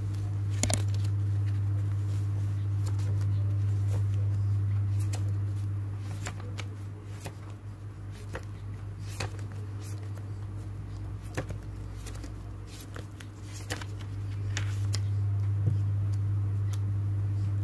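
Paper journal pages being turned and handled: scattered soft rustles and light taps of paper, over a steady low hum that drops in level in the middle.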